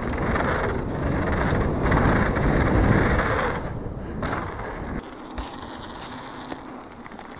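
Wind rushing over an action camera's microphone and a downhill mountain bike's tyres rolling fast over a dirt trail, a steady noisy rush. The deep rumble drops away suddenly about five seconds in, leaving a thinner rush.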